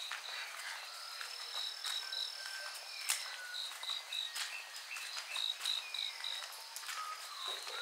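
Crickets chirping in a steady high trill with rhythmic pulsing notes, while birds call in short whistled notes, some falling in pitch. A few sharp taps come through, the loudest about three seconds in.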